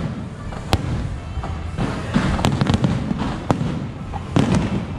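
Aerial fireworks bursting overhead: sharp bangs and crackles at irregular intervals over a continuous rumble, with a denser cluster of reports about two seconds in and another near the end.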